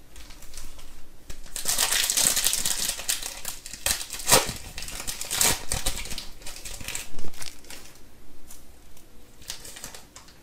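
Foil wrapper of a trading-card pack being torn open and crinkled in the hands, with sharper snaps about four and seven seconds in.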